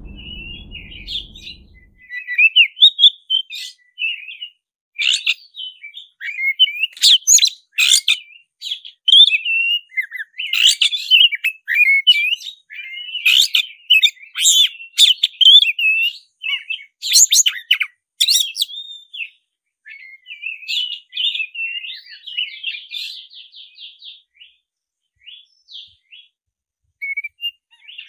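Black-breasted Oriental magpie-robin singing a loud, varied song of chattering whistles and sharp, piercing notes, the full 'fighting' song of a bird in territorial display. Near the end it breaks into a fast run of rapidly repeated notes.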